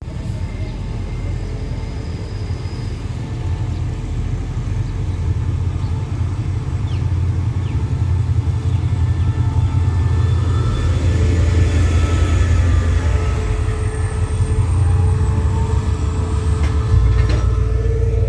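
SRT CDA5B1-class diesel-electric locomotive arriving at a platform, its engine giving a continuous low rumble that grows steadily louder as it draws in and passes close by.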